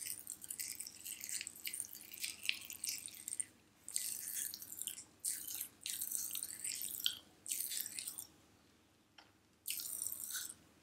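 Magic Pops popping candy crackling in an open mouth: dense runs of tiny high snaps, coming in stretches broken by short pauses, with the longest pause about three-quarters of the way in.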